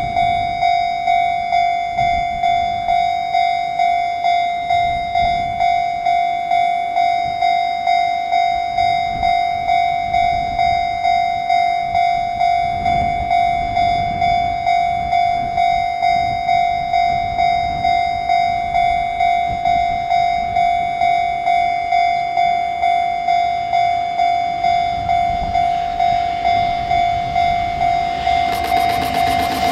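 Japanese railway level-crossing alarm ringing a steady high tone at a little under two strikes a second, each strike fading into the next, warning of an approaching train. Near the end, the noise of a container freight train hauled by an EF200 electric locomotive rises as it draws near.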